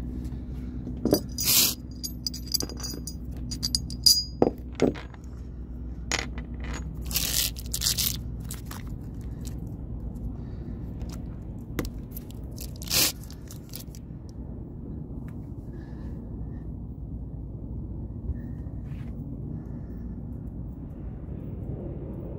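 Metal screws clinking and scraping as they are picked up and handled on a fiberglass deck, with a few ringing metallic clinks in the first few seconds and scattered handling clicks until about halfway through. A steady low rumble runs underneath.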